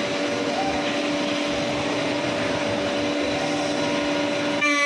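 Five-axis CNC router spindle whining steadily as its cutter machines the curved edge of a wooden chair part, with a rough cutting noise over the whine. Near the end the cutting noise drops away and leaves the spindle's whine on its own.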